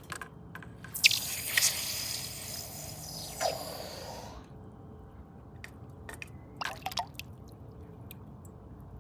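Water splashing and sloshing in a plastic bucket as a square metal plate on a rod is dunked and swished through it, starting sharply about a second in and dying away after about four and a half seconds. A couple of short drips follow later.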